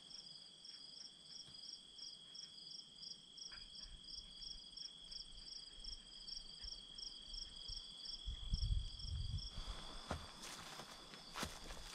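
Insects singing: a steady high trill with a regular chirping above it at about three chirps a second. Near the end the chirping stops and footsteps come in, swishing and crunching through dry grass and leaves.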